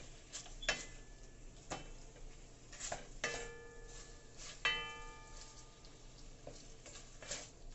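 Wooden spoon stirring beef in a metal pot, knocking against the pot's side about once a second. Two of the knocks, about three and four and a half seconds in, leave the pot ringing briefly.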